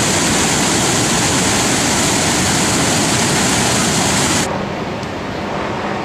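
Niagara Falls water pouring close by: a loud, steady roar. About four and a half seconds in it cuts off abruptly to a softer, duller rushing noise.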